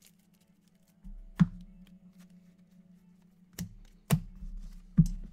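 Trading cards handled by hand: a stack of cards flipped and sorted, with four sharp clicks as cards are knocked or set down, the first about a second and a half in and the last near the end, over a steady low hum.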